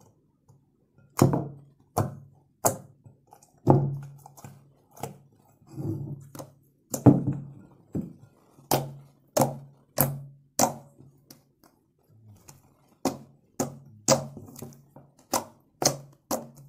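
Fevicol-and-toothpaste slime being kneaded and pressed by hand on a wooden table. It gives a string of sharp pops and clicks, each with a soft thud, at about one or two a second from about a second in.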